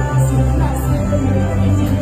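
Loud music with a heavy, steady bass line and held notes.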